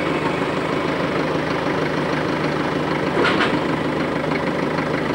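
4x4 engine idling steadily, with a brief louder burst a little past three seconds in.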